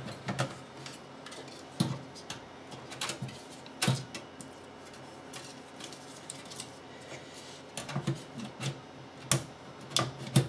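Irregular metallic clicks and knocks as an NVIDIA GeForce GTS 240 graphics card is slid back into its expansion slot and seated against a desktop PC's metal case, with a cluster of clicks near the end.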